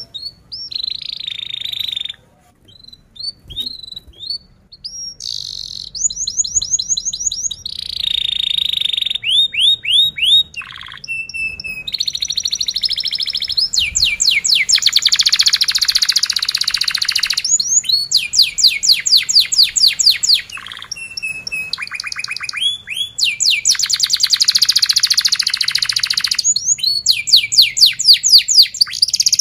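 Domestic canary singing a long song: fast trills of repeated rising whistles alternating with buzzy rolls, in phrases broken by short pauses, louder and more continuous from about halfway through.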